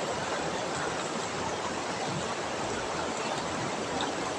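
Steady rush of a river running high in flood.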